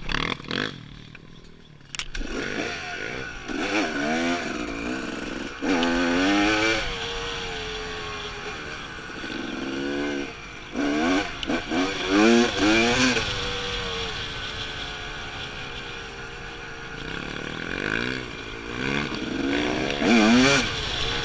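Dirt bike engine running under the rider, revving up and dropping back again and again as it accelerates and shifts; lower and quieter for the first couple of seconds, then repeated rising revs.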